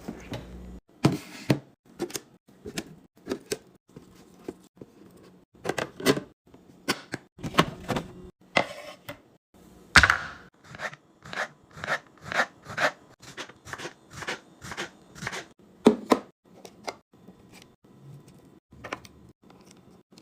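Items being set down and arranged in a fridge: a string of sharp knocks and clicks from containers, with a quicker regular run of about two a second in the middle.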